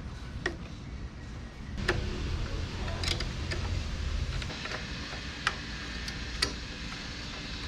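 Scattered sharp clicks and light knocks of tools and parts being handled, about eight at irregular intervals, over a steady low hum.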